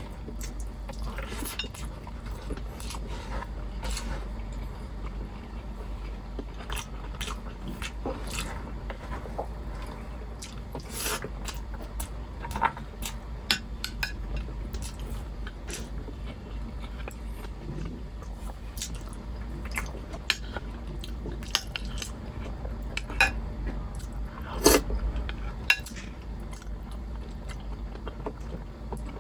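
Close-up eating sounds: chewing of saucy beef caldereta, with a metal fork clinking and scraping against a glass baking dish now and then. One louder knock about three-quarters of the way through.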